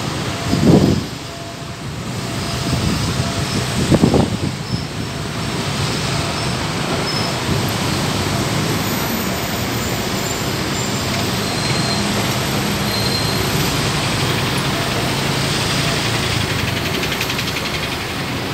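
Steady road traffic in a jam: car and bus engines running and tyre noise. Two brief louder low rumbles stand out, about a second in and about four seconds in.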